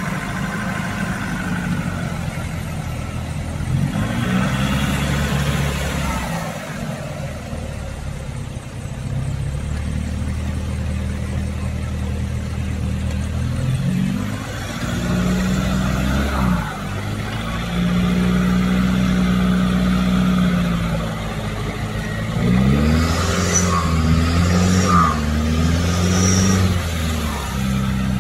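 Nissan Patrol Y61's ZD30 diesel engine revving repeatedly, pitch climbing and dropping several times, as the truck works through deep mud, its tyres spinning and churning the mud.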